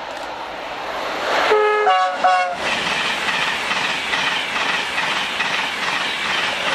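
Train horn sounded about a second and a half in, short notes stepping between two pitches. Then an express hauled by a Class 91 electric locomotive passes at speed with a loud, steady rush of wheels on rail.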